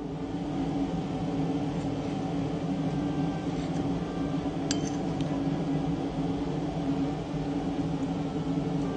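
A metal spoon clinks and scrapes against a ceramic plate while scooping ice cream, with one sharp clink about halfway through, over a steady low hum.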